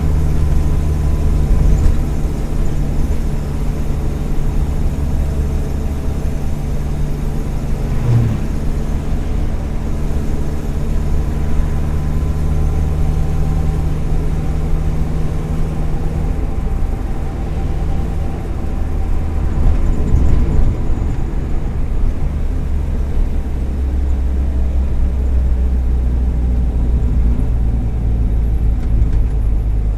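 Volkswagen Kombi's 1.4-litre EA111 four-cylinder engine running under way on the road. Its note holds steady, then changes about halfway through and settles lower. The owner says worn spark plug leads and coil make it misfire now and then, and that a probably cracked exhaust manifold adds noise.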